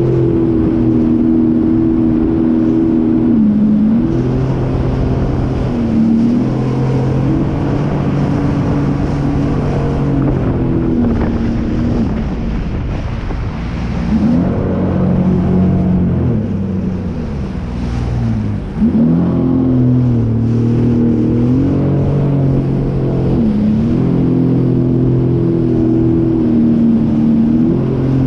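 Sea-Doo personal watercraft engine running under way. Its pitch dips and climbs back several times as the throttle is eased and opened again.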